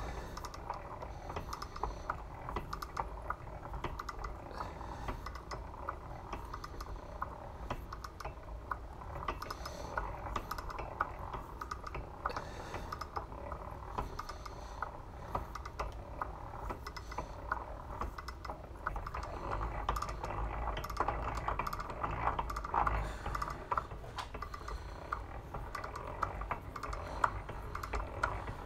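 Hand-cranked blacksmith's post drill boring through the flat end of a forged hook: a steady run of small, rapid clicks and clatter from the drill's gearing and feed as the bit cuts the metal, a little louder about two-thirds of the way through.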